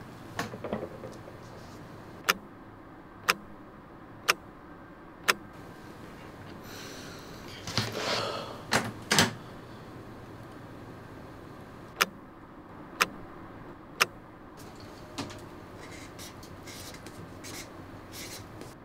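Sharp single ticks, evenly spaced once a second in two runs. Around the middle comes a burst of rustling as someone stirs at the desk. Near the end a marker pen scratches on paper.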